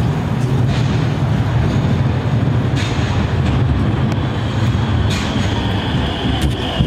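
Modern articulated low-floor electric tram coming into a stop and rolling past close by, a steady low rumble from its wheels on the rails, with a few sharp clicks along the way.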